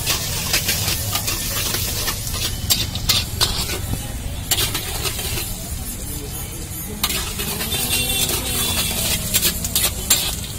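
Flat metal spatula repeatedly scraping and knocking against a large iron kadhai as potatoes, peanuts and curry leaves are tossed in hot oil, with the oil sizzling. A steady low rumble runs underneath.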